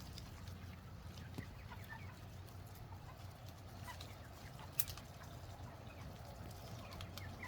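Meat chickens clucking quietly in short, scattered calls, with one sharp click a little under five seconds in.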